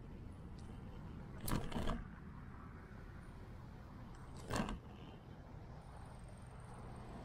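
Bicycle jolting over bumps in the pavement, picked up as sharp knocks through the bike-mounted camera: a quick double knock about a second and a half in and a single one about four and a half seconds in. Underneath is a steady low rumble of wind and rolling.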